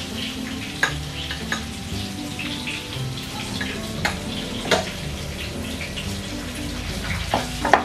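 Oil sizzling in a frying pan on a gas stove, with scattered clinks of a utensil stirring in a bowl, a sharp one near the end.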